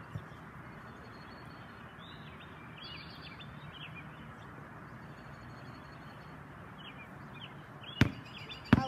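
Small birds chirping repeatedly in the background over a steady outdoor hiss. A basketball bounces twice on a concrete driveway near the end.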